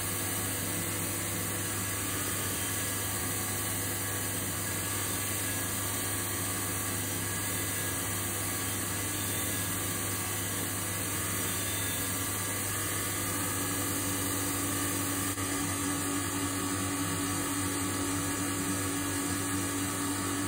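4-inch belt sander, driven by an 8-inch 1 hp bench grinder, running steadily while the dust extractor draws air, with a low hum that grows stronger a little past the middle.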